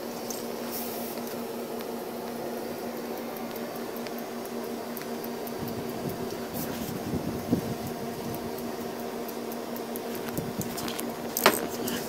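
A steady mechanical hum, like a fan or motor, with faint tapping and handling noises. A sharp click comes near the end.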